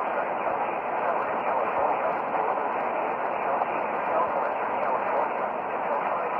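Radio static: a steady, even hiss from a weather radio receiver, with no intelligible words.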